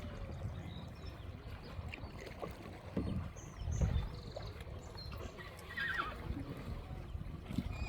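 A wild horse whinnying once, briefly, about six seconds in, over a steady low rumble with a few low knocks.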